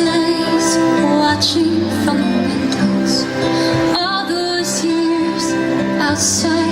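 Show soundtrack music: a slow, tender piece with long held notes and a singing voice.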